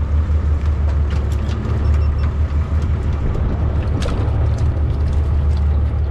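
Steady low rumble of a fishing boat's engine idling, with a few sharp knocks and clatters as a rig of hooked bluenose is hauled in over the transom and the fish land on the deck, one about a second in and another about four seconds in.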